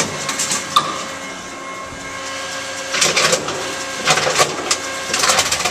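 Tomra T-53 reverse vending machine's motor whirring as its rollers spin an inserted plastic bottle to read the barcode, with bursts of clattering a few times, then sending the bottle back out: rejected, which the owner puts down to its old label.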